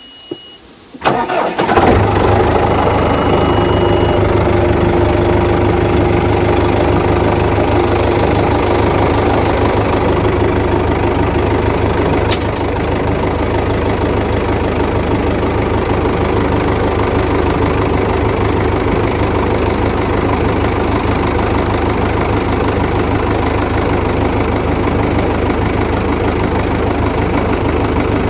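Tractor engine starting about a second in, after a brief crank, then running steadily at idle. A short high beep sounds shortly after it catches.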